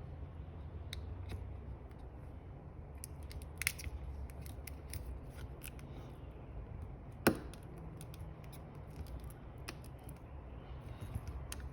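Small clicks and taps of tools and parts on an opened smartphone being put back together, as the battery goes back in. One sharper click about seven seconds in stands out over a low steady hum.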